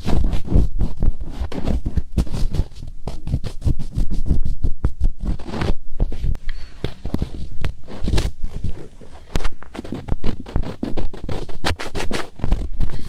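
ASMR finger ear-cleaning: fingertips rubbing and scratching in a microphone's ear, very close. A dense, irregular run of scratchy rustles with deep muffled thumps.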